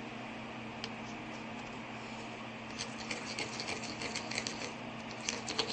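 Homemade shampoo slime being handled and squeezed by hand. Small sticky clicks and crackles start about three seconds in, over a steady background hum.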